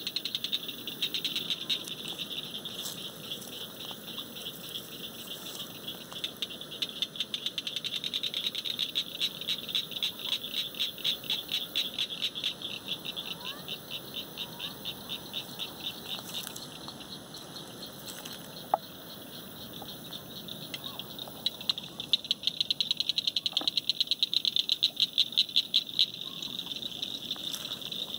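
A chorus of calling frogs or insects: a high, rapid pulsing trill that keeps going and swells louder twice. A single sharp click sounds a little past halfway.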